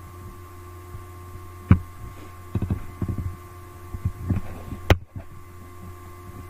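Steady low electrical hum with scattered clicks and knocks. There is a sharp click a little under two seconds in, a quick run of taps about a second later, a few more around four seconds, and a louder snap near five seconds.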